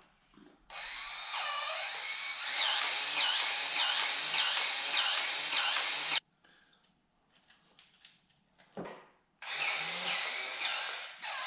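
DeWalt 20-volt cordless grease gun running as it pumps grease into a backhoe fitting: a steady motor whine with a pumping stroke a little under twice a second. It stops suddenly about six seconds in and starts again on the next fitting near the end.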